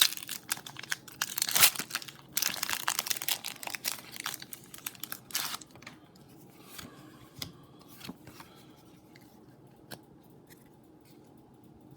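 Pokémon TCG booster pack's foil wrapper being torn open and crinkled: dense crackling for about five and a half seconds, then quieter handling with a few light ticks.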